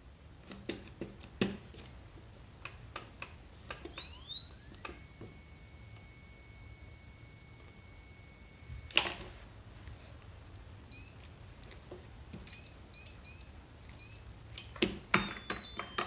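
Arduino-driven electronic tones and button clicks from a homemade toddler's busy box being played with. After a few clicks of buttons and switches, a high electronic tone glides up and holds steady for about four seconds, then cuts off with a click; later come a run of short rising beeps and, near the end, more clicks and a quick string of beeps.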